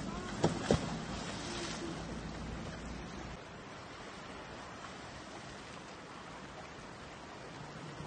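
Steady rush of a fast river current with some wind, with two sharp knocks close together about half a second in. The rush eases slightly about three seconds in.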